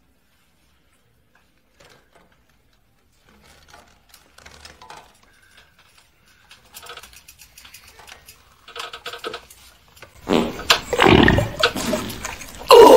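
A loud, rough growl-like roar, starting about ten seconds in and loudest near the end, after a stretch of faint scattered rustles.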